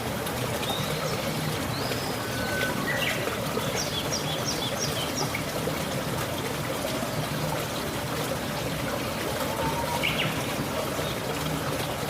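Water trickling and running steadily, with small birds chirping and whistling over it, including a quick run of repeated short notes about four seconds in.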